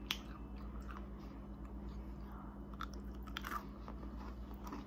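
Close-miked biting and chewing of crunchy candy, with a few sharp crunches, one just after the start and others about three and three and a half seconds in, over a steady low hum.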